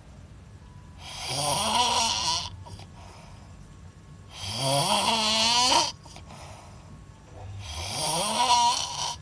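A person snoring with lips pushed out: three long snores about three seconds apart, each rising in pitch as it goes.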